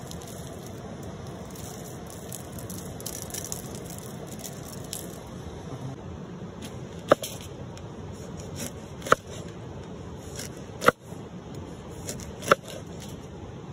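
Cleaver chopping through a lemon onto a wooden cutting board: four sharp knocks in the second half, about one every one and a half to two seconds, over the steady rush of a river.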